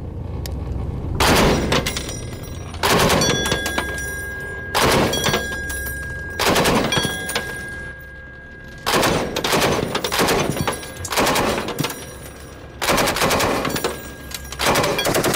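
M240B 7.62 mm belt-fed machine gun firing about nine short bursts, a second or two apart. Spent brass rings in metallic dings as it lands on the boat's deck.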